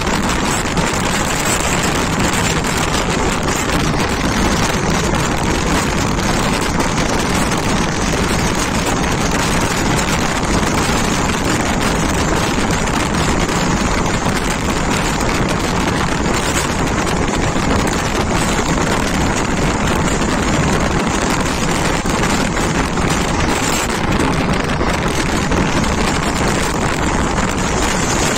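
Express passenger train running at speed, heard from an open coach doorway: a loud, steady rush of wind on the microphone over the train's running noise.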